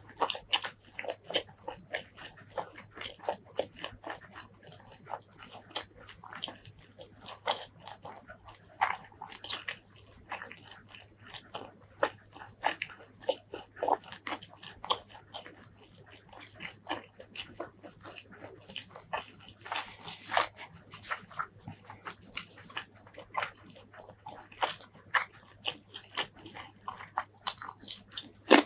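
Close-miked chewing and biting of a meal of pork curry, green eggplant and rice: a steady, irregular run of wet mouth clicks and crunches, with one louder crunchy bite about two-thirds of the way in.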